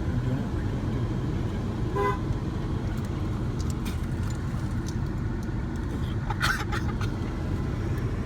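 A car horn honking in short toots, one about two seconds in and another, brighter one past six seconds, over the steady low rumble of a car driving.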